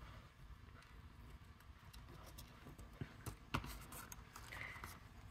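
Faint rustling and light tapping of die-cut paper pieces and a clear plastic bag being handled, with a few small clicks a little after three seconds in and a short scratch near the end.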